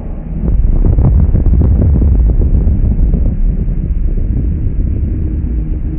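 Slowed-down sound effect of a giant video screen exploding as a thrown sledgehammer smashes it: a sudden loud blast about a third of a second in, drawn out into a long, deep rumble.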